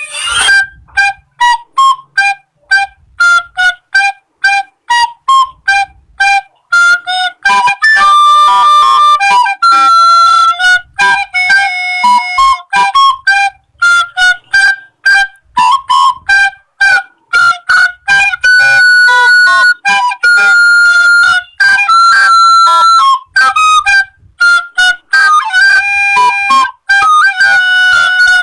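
A flute-like woodwind playing a melody. It opens with many quick, short notes, and from about eight seconds in it mixes in longer held notes.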